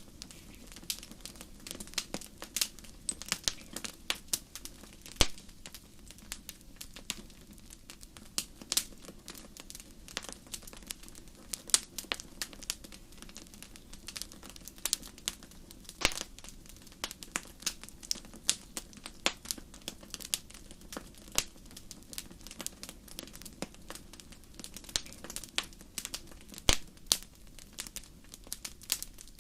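Wood fire crackling and popping in a fireplace: irregular sharp snaps several times a second, some louder pops standing out, over a steady low rumble of the flames.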